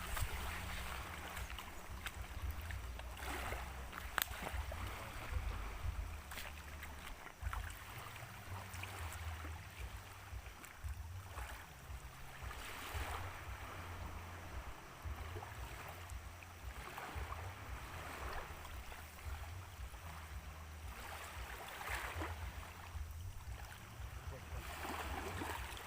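Wind rumbling unevenly on the microphone, with water washing in and out in soft swells every few seconds.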